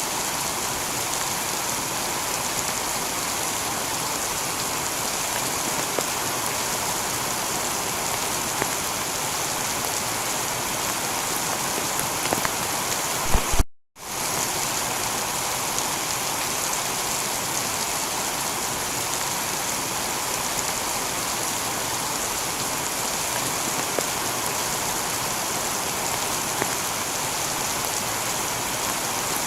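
Steady heavy rain on a tiled roof, with scattered drip ticks. About 14 seconds in, the sound cuts out for a split second after a couple of clicks, then fades back in.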